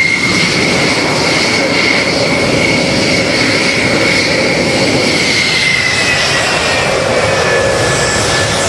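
F-4EJ Phantom jet engines idling: a loud steady rush with a high turbine whine that sinks a little in pitch near the end.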